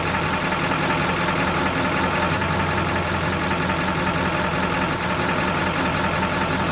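Diesel pickup truck engine idling steadily.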